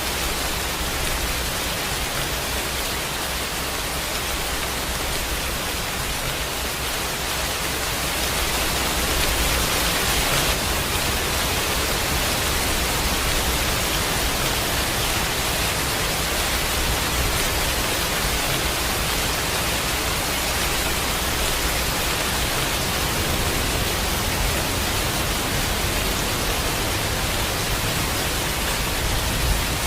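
Steady heavy rain, an even hiss with no single drops or thunder standing out, swelling slightly about ten seconds in.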